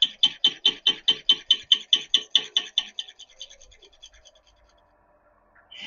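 Slitting saw cutting the slot in a screw head, ticking sharply about four to five times a second, once per turn, because the saw runs out of true. The ticks fade away about halfway through. Just before the end, a steady high-pitched lathe cutting sound starts.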